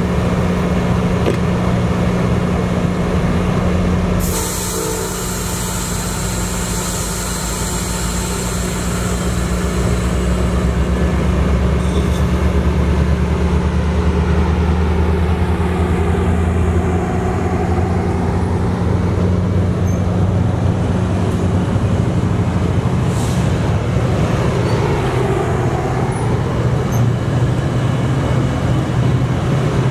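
Virginia Railway Express bilevel commuter train at the platform with its diesel running steadily; a burst of air hiss comes about four seconds in. The train then pulls away, its engine working harder and the cars rolling past.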